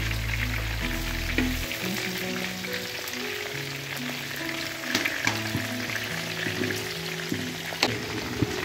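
Pork pieces deep-frying in their own rendered fat, a steady crackling sizzle with many small pops as the fat renders out into lard.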